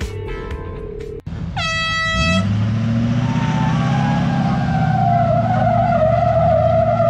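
Music until a cut about a second in, then a single air horn blast lasting under a second, followed by a vehicle engine running steadily with a wavering whine.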